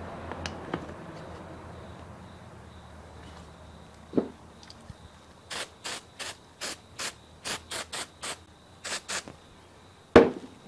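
Ratchet wrench worked in a run of about a dozen short strokes, roughly three a second, after a knock about four seconds in. A sharper, louder knock comes near the end.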